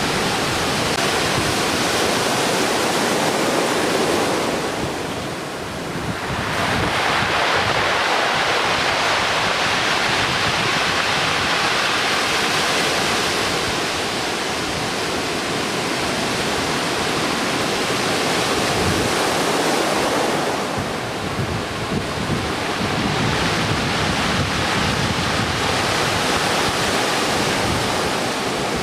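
Heavy typhoon swell breaking as closeout waves: a continuous loud rush of surf, with wind buffeting the microphone. The surf eases briefly twice, about five seconds in and again about twenty-one seconds in.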